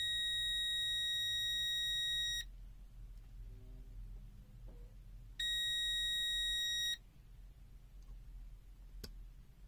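Digital multimeter's continuity buzzer sounding two long, steady high beeps, the first about two and a half seconds long and the second shorter about five seconds in, each one signalling a low-resistance path across the test leads. A single sharp click follows near the end.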